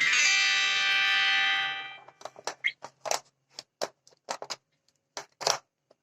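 A steady buzzing electronic tone lasting about two seconds, which then cuts off, followed by a string of about a dozen short clicks and knocks.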